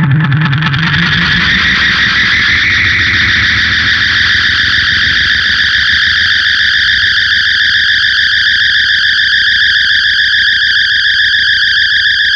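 SG electric guitar through a Big Muff fuzz and an MXR Analog Delay with light reverb, holding a steady, high, warbling distorted drone; its low notes die away in the first second or so.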